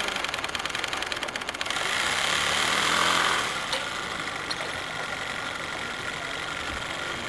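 Small steam winch engine (a PM Research 5BI) on a 2-inch-scale Shay locomotive, running fast with rapid, even exhaust ticks that stop under two seconds in. A loud hiss of steam follows for about a second and a half, then a steadier low hiss with a couple of small clicks.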